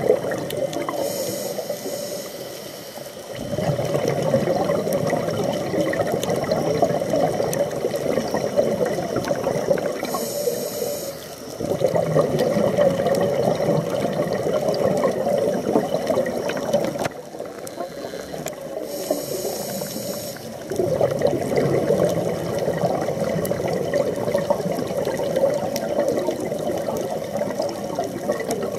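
Scuba diver breathing through a regulator underwater: a short hissing inhale about every nine seconds, each followed by several seconds of bubbling exhalation. Three such breaths.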